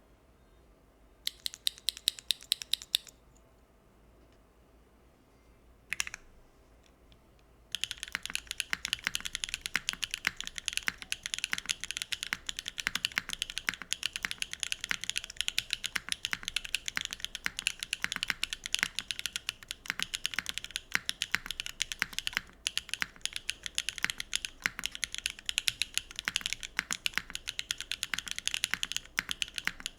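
Neo60 Core mechanical keyboard with HMX Cosmic Purple switches on a carbon-fibre plate, with no foam inside, being typed on. A short burst of keystrokes comes about a second in and a single keystroke near six seconds, then steady fast typing from about eight seconds on.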